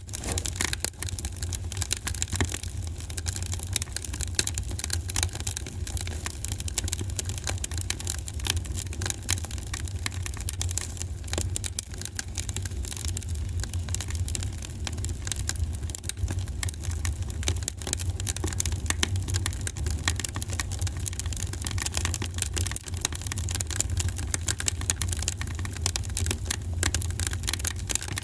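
Wood fire in a fireplace crackling and popping: many irregular sharp crackles, over a steady low rumble.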